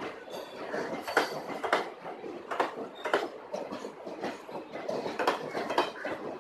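Indian Railways blue passenger coaches rolling past close by: a steady rumble of wheels on rail, broken by sharp knocks, several of them in pairs about half a second apart as each bogie's wheels cross a rail joint.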